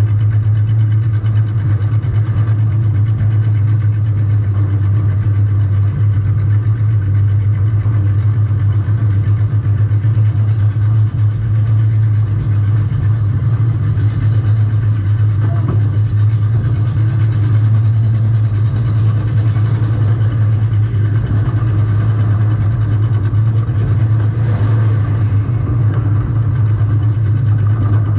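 Demolition-derby compact car's engine running steadily at a low, even speed, heard up close on the car itself.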